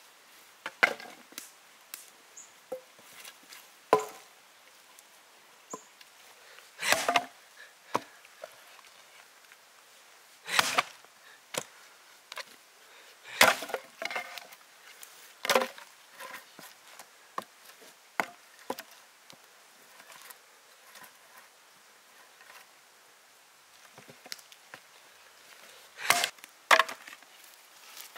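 Irregular chopping strikes, one to a few seconds apart, some louder and longer than others, with a quiet stretch of several seconds before two loud strikes near the end.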